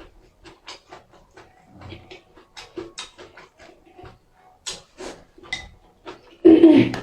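A person eating close to the microphone: irregular wet chewing and lip-smacking clicks. Near the end there is a louder voiced breath or utterance.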